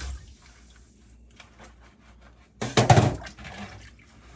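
Dishes clinking faintly in a kitchen sink during washing up, with a louder clatter of dishes knocking together about three seconds in.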